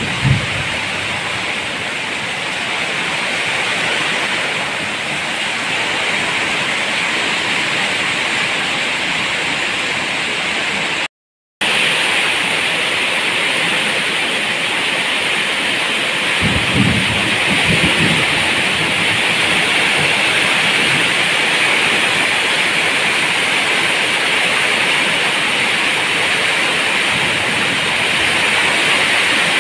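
Heavy rain falling steadily, a dense even hiss, with a short low rumble of thunder about seventeen seconds in. The sound cuts out completely for a moment about eleven seconds in.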